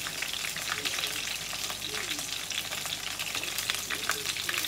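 Flour-coated chicken pieces shallow-frying in hot oil in a pan: a steady sizzle full of fine crackling pops.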